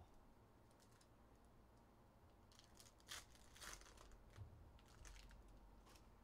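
Near silence, with faint crisp rustles and light taps from about two and a half seconds in, as trading cards are handled and set down on a stack.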